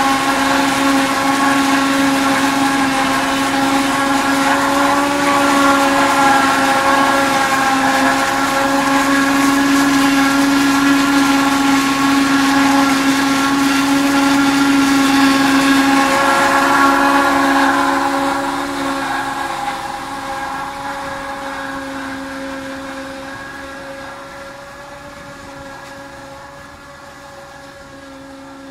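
Jumil JM 4200 forage harvester running as it cuts and chops standing maize behind its tractor: a loud, steady mechanical whine on one even pitch. It grows fainter over the last ten seconds as the machine moves off.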